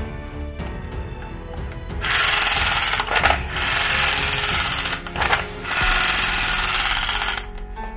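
Combat Force toy submachine gun firing its electronic machine-gun sound effect in three bursts of fast, even rattling, each a second or two long, starting about two seconds in.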